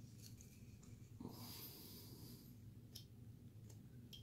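Near silence: a low room hum with a few faint clicks of a carving knife cutting basswood, and one soft hiss about a second long, a little over a second in.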